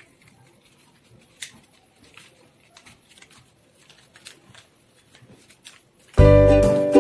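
Faint rustling and crinkling of coloured paper being folded and creased by hand, with soft scattered ticks, one a little louder about a second and a half in. Background music comes back in abruptly near the end and is the loudest sound.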